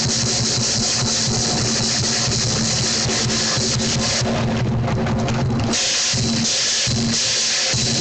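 Lion dance percussion: a large drum beating with crashing cymbals, loud and continuous.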